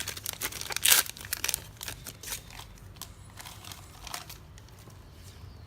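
Foil booster pack wrapper crinkling and tearing as a pack of trading cards is opened, loudest about a second in, then thinning to faint rustling after a couple of seconds.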